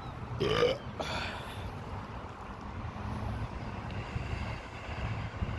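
Steady low rumble of a running vehicle, with a short vocal sound about half a second in.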